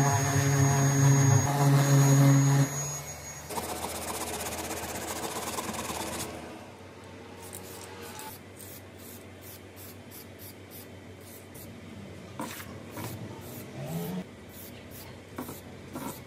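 An electric orbital sander runs on the plastic bumper with a steady motor hum and stops about three seconds in, followed by a rough rasping noise until about six seconds. From about eight seconds on, an aerosol spray paint can gives many short hisses, about two a second.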